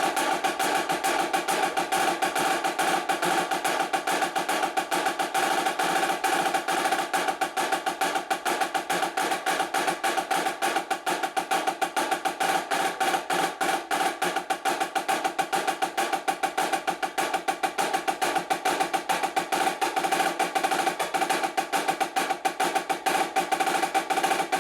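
Premier marching snare drum played in fast, continuous rolls and rudiments, the strokes packed close together with no pause. The drum rings at a high pitch under each stroke.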